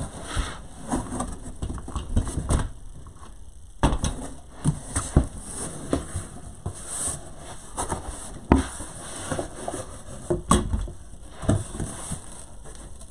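Large corrugated cardboard shipping box being handled: turned over and its flaps folded open, with rustling and several sharp cardboard knocks against the table.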